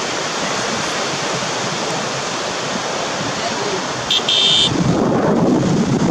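Sea surf and wind at the shore, a steady wash of noise. From about four seconds in, gusts buffet the microphone with a louder, rough low rumble.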